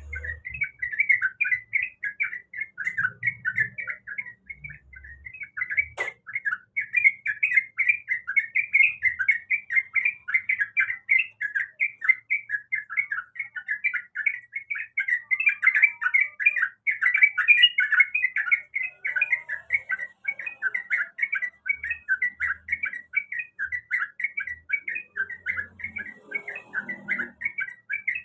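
Yellow-vented bulbul (trucukan) singing a continuous, fast run of short notes, about five a second. There is a single sharp click about six seconds in.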